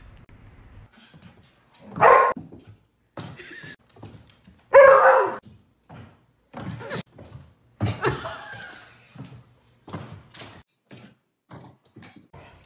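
A dog barking in separate bursts, the two loudest about two and five seconds in, with short knocks in between.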